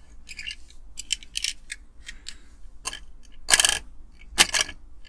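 Light metallic clicks and short scrapes from a Dinky Toys diecast model car being handled on a wooden workbench, with two louder rattling scrapes in the second half.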